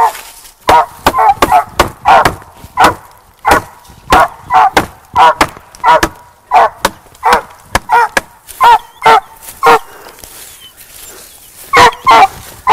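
Squirrel-hunting hounds giving a treeing bark at the base of a tree: a fast run of short barks at about three a second, breaking off for a couple of seconds near the end and then starting again.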